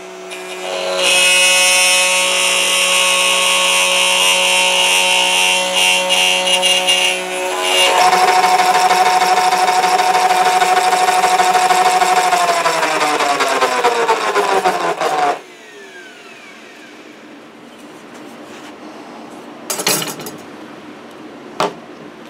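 Router in a router table cutting a circle through half-inch plywood as the piece is turned on a pivot pin. It changes pitch about eight seconds in, runs steadily, and then winds down with a falling whine after being switched off, followed by a few light knocks.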